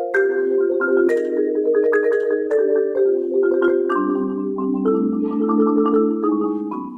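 Solo marimba played with four mallets: a flowing stream of struck chords and quickly repeated notes, the harmony moving lower about four seconds in.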